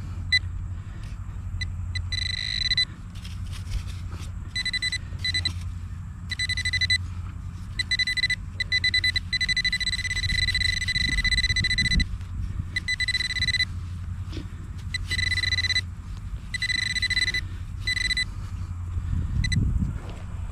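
Handheld metal-detecting pinpointer sounding a steady high alert tone in on-off stretches, with one long run in the middle, as it is worked over a small metal target in the dug soil. A low rumble runs underneath.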